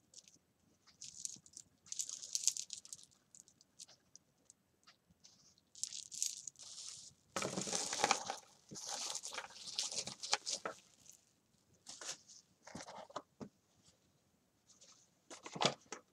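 Clear cellophane wrapping crinkling and rustling as it is handled, in irregular bursts, loudest about halfway through. A single knock near the end.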